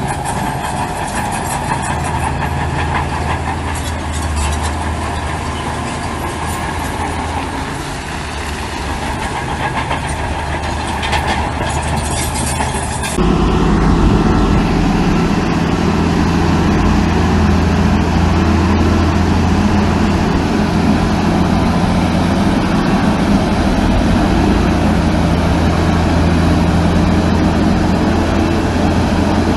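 Heavy diesel earthmoving machinery running, with rattling over the engine in the first part. A little under halfway through, the sound changes abruptly to a louder, deeper steady engine drone.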